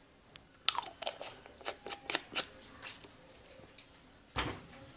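Scattered light clicks and taps of small containers and a bottle cap being handled while measuring a capful of water into slime glue, with one louder knock near the end.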